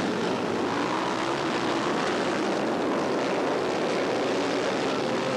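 A pack of dirt-track racing motorcycles running hard at full throttle, several engine notes rising and falling in pitch over one another.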